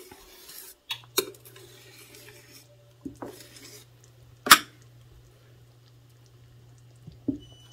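Spoon knocking and clinking against a stainless steel pot while stirring thick groundnut soup: a handful of sharp clinks, the loudest about four and a half seconds in, over a faint steady hum.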